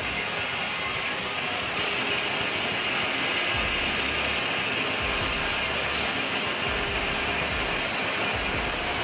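Steam-powered machinery running: a steady, continuous hiss, with low rumbles that come and go in the second half.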